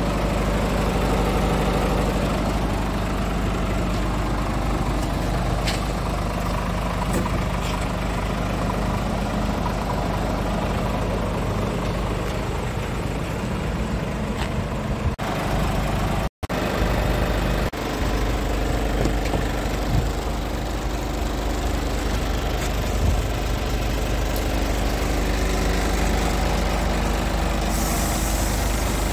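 Scania G450 truck's diesel engine idling steadily with a low rumble; the sound cuts out very briefly about halfway through.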